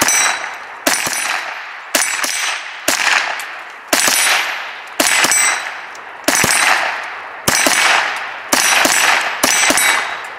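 .22 rimfire rifles from two shooters firing a rapid, irregular string of shots, about one crack a second, each trailing off over most of a second. A high thin ringing follows several of the shots.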